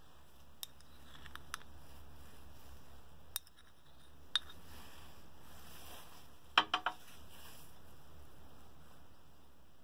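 Metal spoon clinking against a small ceramic bowl while scooping out soft chocolate: a few light scattered taps, then a quick run of three ringing clinks a bit over halfway through.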